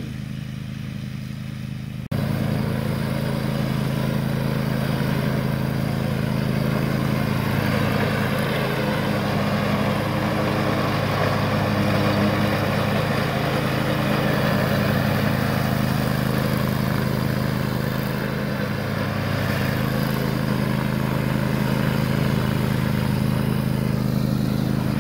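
Zero-turn riding mower's engine running steadily as it mows through tall grass. The sound jumps suddenly louder about two seconds in, then holds steady.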